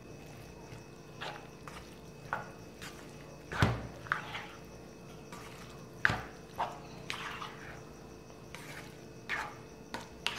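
Spatula stirring beaten egg through a wet mix of minced mutton, diced potato and peas in a non-stick pan: soft squelches and scrapes, with two louder knocks of the spatula against the pan, a little under four seconds in and about six seconds in.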